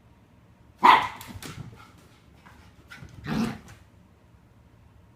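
A dog barking twice, about two and a half seconds apart. The first bark is the louder.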